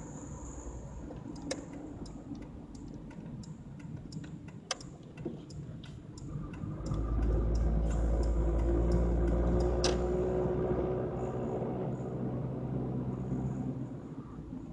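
A car driving slowly on a paved road, heard from inside the cabin: a steady low rumble of engine and tyres that grows louder about seven seconds in and eases off again a few seconds later. Scattered light clicks are heard over it.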